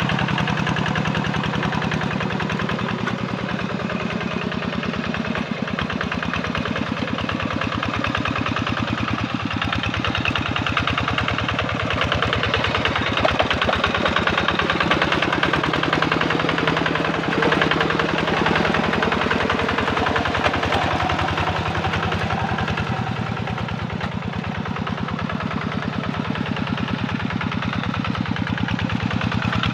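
Kubota RD85 single-cylinder diesel engine on a Yanmar hand tractor running steadily under load while its cage wheels work through paddy mud, with a rapid, even firing knock. It is somewhat louder in the middle as the machine passes close.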